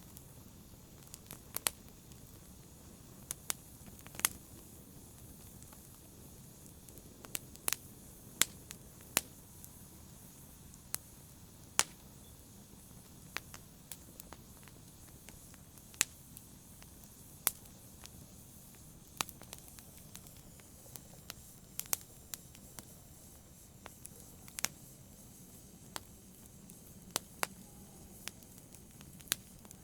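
Wood fire crackling in a fireplace: irregular sharp pops and snaps over a soft low hiss of burning.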